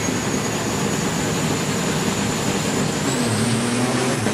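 Diesel engines of two semi trucks running loudly at a drag-race start line, with a steady high whistle. About three seconds in they rev up, the engine note and the whistle both rising in pitch.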